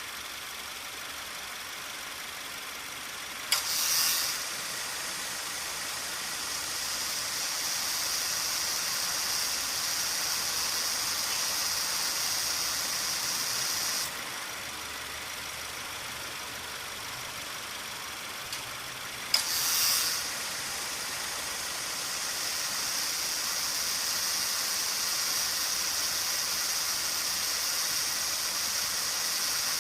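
A 2018 Subaru Forester's air-conditioning compressor cycles on twice over the idling engine. Each time a sharp click of the clutch engaging is followed by a brief surge, then a loud, steady high-pitched whine with hiss. The whine cuts off abruptly about halfway through, between the two engagements. This abnormal running noise is the sign of a moderately worn compressor.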